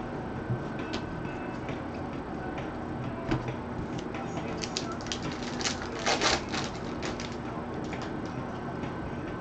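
Trading cards being handled and shuffled: scattered light clicks and taps, with a short rustling, sliding burst about six seconds in.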